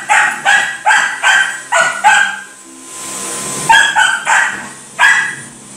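Puppy barking at a running stick vacuum in short, high yaps, about two or three a second. The barking pauses about two seconds in, then three more barks follow. A steady faint whine from the vacuum runs underneath.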